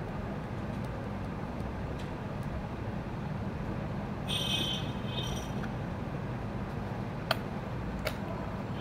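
Steady low background noise, with a short high-pitched tone sounding twice about four and a half seconds in and two sharp clicks near the end.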